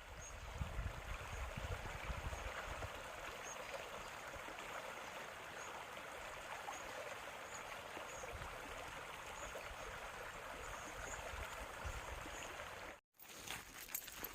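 Running water from a stream, a steady rushing noise. Near the end it breaks off suddenly, and a patter of sharp clicks follows.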